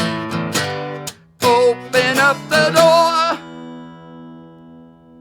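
Closing bars of a song on strummed acoustic guitar: strumming, a brief break, then three sharp accented chords with wavering held notes. The last chord rings out and slowly fades.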